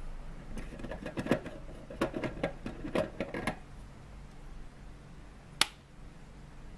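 A run of light clicks and clatter as filament bulbs and their lamp holders are handled and taken off the rig, then one sharp click about five and a half seconds in from the dimmer switch being pressed.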